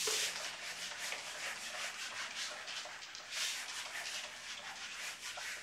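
Whiteboard eraser wiping across a whiteboard in quick back-and-forth strokes, a dry rubbing swish, heaviest at the start and again about halfway through.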